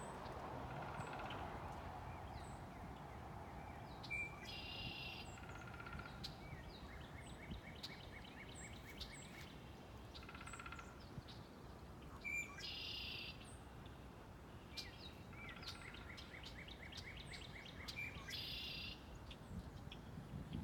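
Songbirds singing: a buzzy song repeated three times, long even trills, and scattered high chirps, over a low steady background rumble.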